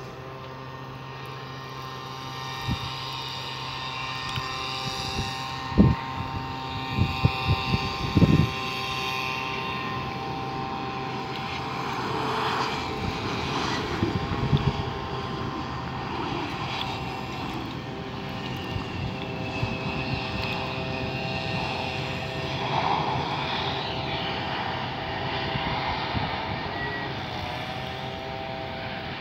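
Turbofan engines of a Mitsubishi CRJ-1000 regional jet whining steadily through its approach and landing: several high tones held over a rushing noise. A cluster of loud thumps on the microphone comes about six to eight seconds in.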